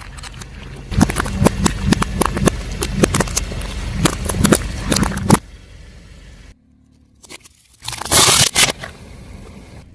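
A car tyre rolling over and crushing crunchy objects: a dense run of sharp cracks and snaps over the car's low running hum for about four seconds, ending abruptly. After a quiet break there is one short, loud crunch near the end.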